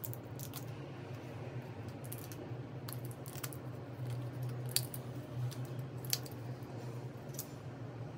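Tablets being pressed out of a plastic-and-foil blister pack: scattered sharp crackles and clicks as the pack is bent and the foil pops, over a low steady hum.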